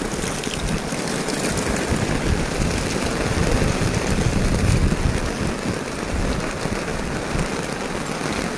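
Heavy rain pouring down: a loud, steady hiss with a low rumble underneath.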